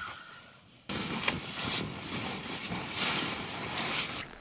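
Loud rustling of nylon tent fabric and camping gear being handled, a hissy crackle that starts suddenly about a second in and stops abruptly near the end.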